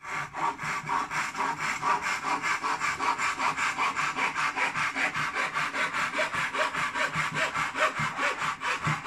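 Hand saw cutting through a wooden board clamped to a table, driven back and forth in quick, even rasping strokes, several a second.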